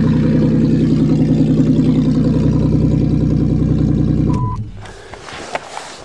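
Pontiac engine idling steadily with an even pulse after a cold start without a choke, then switched off about four seconds in. A short high tone and a few light clicks and knocks follow.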